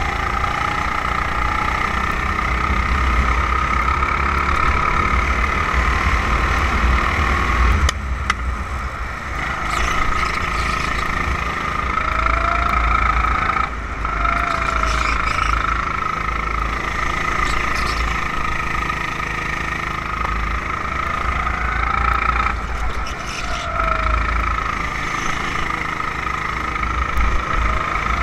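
Onboard sound of a 270cc four-stroke rental kart engine running hard around the track. The engine note drops briefly three times as the throttle is lifted for corners, then picks back up.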